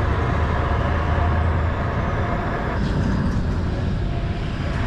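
Four-wheel drive vehicle driving, with a steady engine rumble and road noise.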